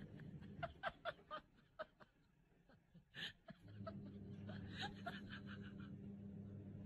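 Faint laughter: a person chuckling in quick short bursts, in two runs with a pause between.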